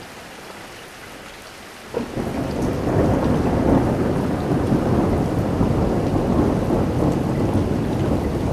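Rain falling steadily, then a sudden thunderclap about two seconds in that rumbles on loudly through the rest of the storm.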